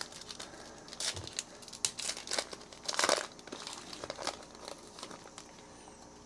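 The wrapper of a 2021 Donruss Elite Football trading card pack being torn open and crinkled by hand, in irregular crackles that are loudest about a second in and around three seconds in.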